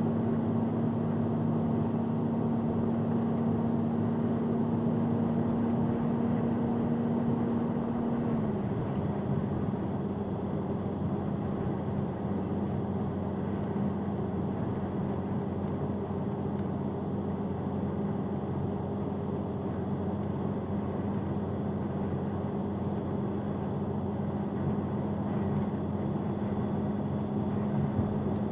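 Truck engine and road noise heard from inside the cab while cruising on the highway: a steady engine hum that drops slightly in pitch about eight seconds in, over an even rush of tyres and wind.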